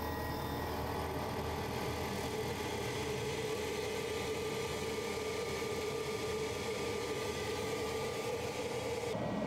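xTool P2 55 W CO2 laser cutter running a cut through 1/4-inch Baltic birch plywood: a steady machine hum with one held mid-pitched tone, its air assist and fans running, which drops away shortly before the end as the cut finishes.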